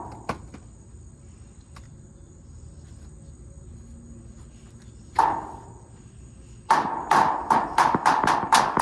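Hammer striking a dig-it kit's plaster block: a couple of blows at the start, a single blow about five seconds in, then a rapid run of about ten blows, three or four a second, near the end.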